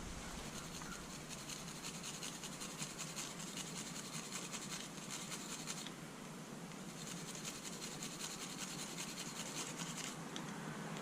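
Rapid, steady scratching of a tool on the threads of a steel caliper bracket bolt as dried Loctite threadlocker is scraped off. It eases off about six seconds in, then resumes.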